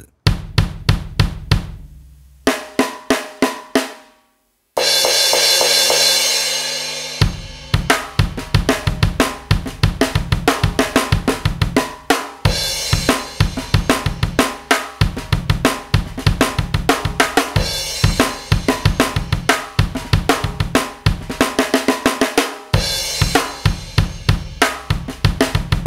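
Drum kit samples (kick, snare, hi-hat and cymbals) triggered by slaps on the thighs and shoulder through drum-replacement software, playing a fast beat. After a brief stop about four seconds in, a cymbal crash rings out before the groove resumes.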